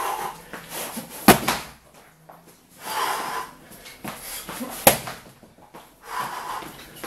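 Kicks landing on a BOB XL freestanding training dummy: two sharp hits about three and a half seconds apart, each preceded by a forceful breath.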